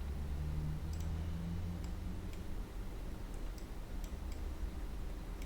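A few faint, scattered clicks of a computer mouse or keyboard over a steady low hum.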